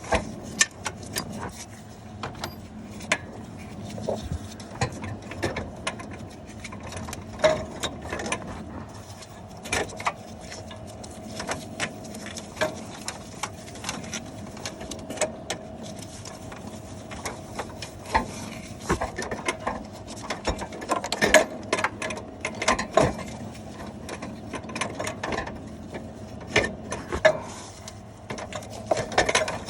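Hand ratchet wrench clicking and metal tools knocking in irregular bursts, as the mounting bolts of a car's A/C compressor are worked loose.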